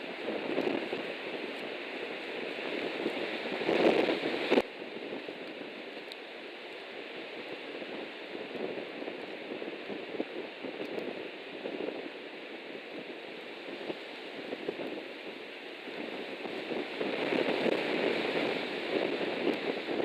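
Strong gusty wind buffeting a nest camera's microphone: a steady rushing that surges about four seconds in, cuts off abruptly, and builds again near the end.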